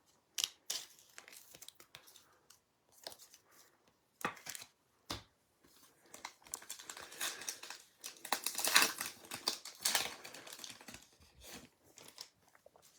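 A sealed pack of football trading cards being torn open, its wrapper crinkling, and the cards handled. Scattered rustles and clicks, with the busiest crinkling around the middle.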